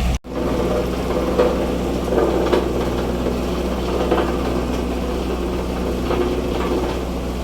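Engine running steadily at a low, even idle, with a few light knocks over it. The sound cuts out for a split second just after the start.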